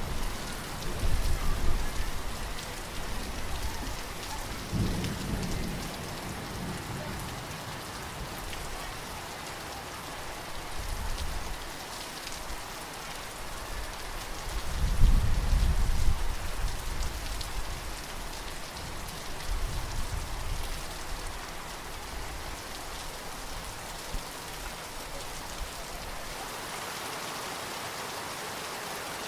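Steady rain falling, with several rolls of distant thunder rumbling low; the loudest rumble comes about halfway through. Near the end only the rain remains.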